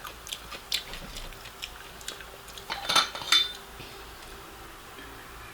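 Eating utensils clicking and tapping against dishware: light scattered taps, then a louder cluster of clicks about three seconds in.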